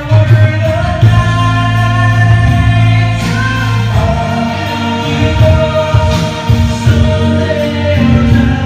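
A song with singing and a strong steady bass line, played loud over a PA of RCF 315 speakers and subwoofers during a speaker setup comparison.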